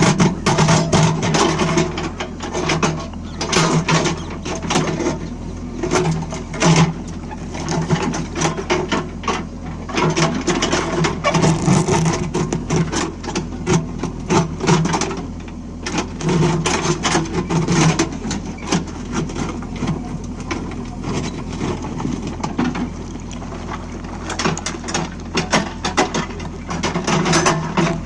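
JCB 3DX backhoe loader's diesel engine running under load while digging. The engine throb swells and eases every few seconds, and frequent sharp clanks and scrapes come from the bucket and arm.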